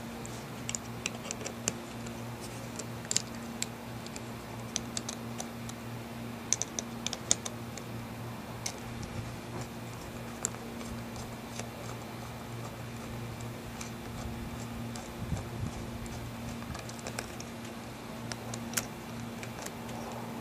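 Small, irregular clicks and ticks of a screwdriver driving the remaining cover-plate screws into a ZF 5HP19 transmission valve body, some in quick runs of several clicks. A steady low hum runs underneath.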